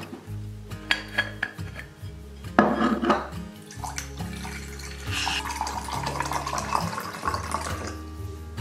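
Metal clinks as a stovetop moka pot is unscrewed and handled, then water poured into the moka pot's metal base for about three seconds.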